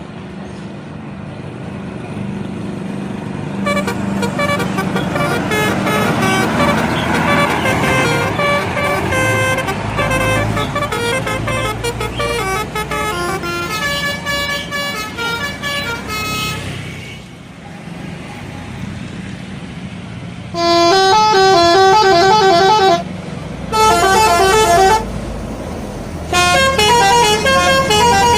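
Indonesian bus telolet horns: multi-tone horns playing quick stepping melodies over a running bus engine. A long run of melody fills the first half, then three loud bursts come close together in the second half.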